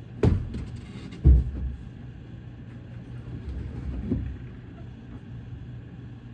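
A few dull knocks and thumps, the loudest about a second in, over a steady low hum.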